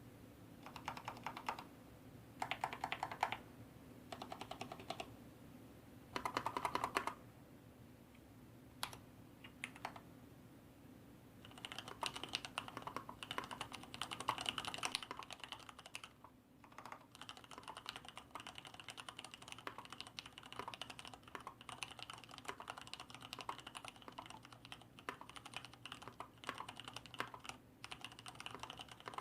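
Typing on a Leopold FC900R full-size mechanical keyboard with Cherry MX Red linear switches and PBT keycaps, its stabilizers lubed and the switches left unlubed. It starts with short quick runs of keystrokes and a few single presses, then turns to steady continuous typing from about twelve seconds in, with a brief break partway.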